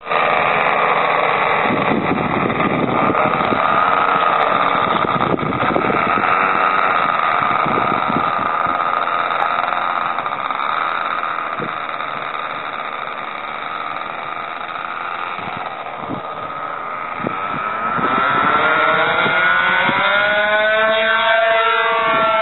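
Twin engines of a Pica Duellist radio-controlled model plane running through the takeoff roll and climb-out: a loud, steady buzz. In the last few seconds a clear whine rises in pitch as the plane climbs away.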